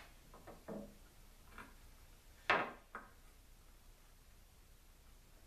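A few light knocks of objects being set down and handled on a wooden board during marking out. The sharpest knock comes about two and a half seconds in, with a smaller one half a second later.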